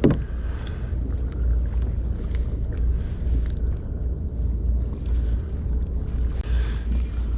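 A steady low rumble with a haze of noise, typical of sitting on a boat on the water, with a few faint small knocks.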